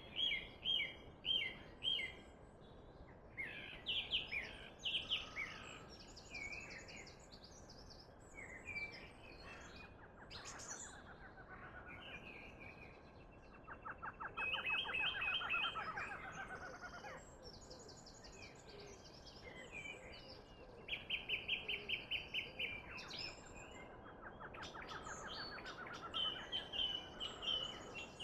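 Several songbirds singing and calling: repeated chirps, trills and fast runs of notes, over a faint steady background hiss.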